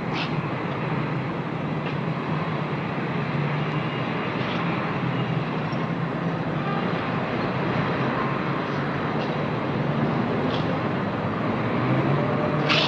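Steady city street traffic noise with a low hum, broken by a few faint clicks.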